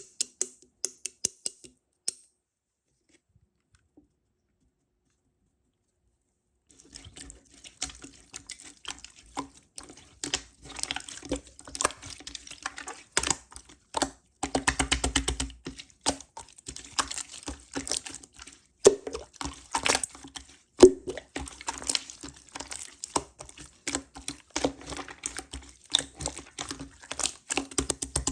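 Clear slime with toppings being squished and pressed by hand, making quick sticky clicks and small wet pops. A few clicks at the start, then a pause for several seconds before steady, dense clicking and popping resumes.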